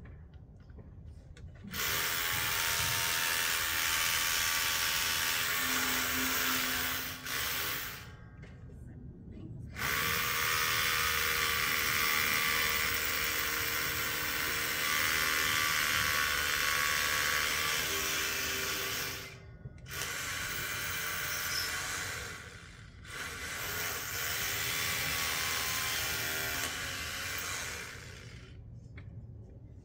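Hammer drill boring into concrete steps for railing-post anchors. It runs in four long bursts, about 6, 9, 2 and 4 seconds long, with brief pauses between them.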